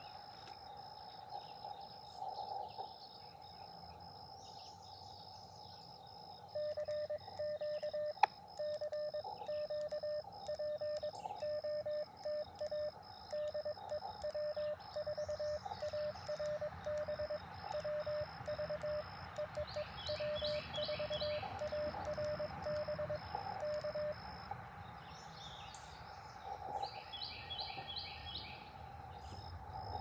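Morse code from an Elecraft KX2 transceiver: a single-pitch tone keyed in dots and dashes, starting about six seconds in and stopping about six seconds before the end, with the radio's narrow receiver hiss before and after it. Crickets trill steadily throughout and birds chirp a few times.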